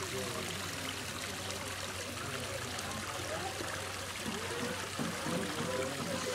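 Steady rush of running water from a stream flowing down a rocky channel into a pool.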